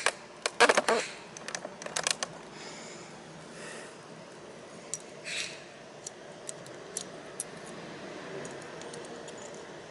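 Small metal clicks and scrapes of a brake pad being handled against a Daelim S300 scooter's front brake caliper and slid into place. The clicks are loudest in the first two seconds, then give way to scattered faint ticks and one short scrape.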